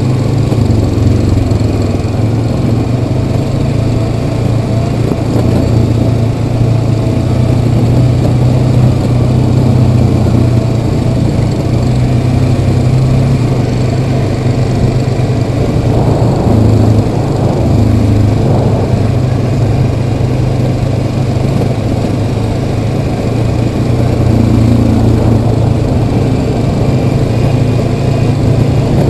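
Yamaha Kodiak 700 ATV's single-cylinder engine running steadily while riding along a trail, a continuous low engine hum with small swells in speed.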